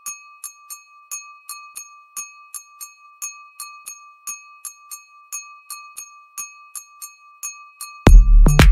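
Edited-in music: a steady high tone with light bell-like ticks about four times a second. Near the end, loud electronic dance music with a heavy beat cuts in.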